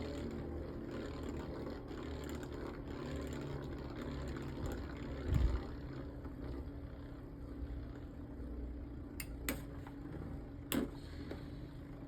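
Two Beyblade spinning tops, Wind Pegasus and Cosmic Pegasus, whirring steadily as they spin against each other. There is a low knock about five seconds in and a few sharp clacks near the end.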